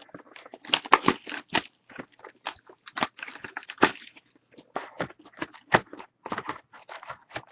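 Packaging of a sealed box of Panini Crown Royale football trading cards being torn and opened: irregular crinkling, crackling and rustling.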